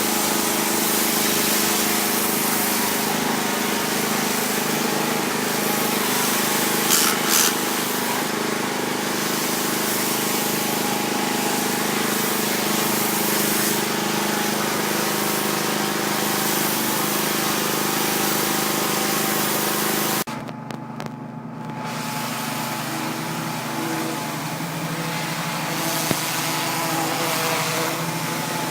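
Gas-engine pressure washer running steadily, the engine note under the hiss of the high-pressure water spray. About two-thirds of the way through, the spray cuts off for a second or two as the trigger is let go while the engine keeps running, then the spray starts again.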